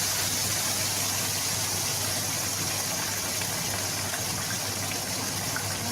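Fish frying in hot oil in a pan: a steady, even sizzle, with a low steady hum underneath.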